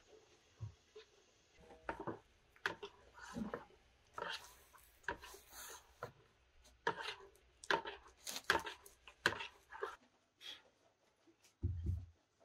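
Spoon stirring and scraping through thick batter in a plastic bucket: a run of irregular clicks and scrapes against the bucket's sides. Near the end, two dull thumps from dough being worked on a cloth.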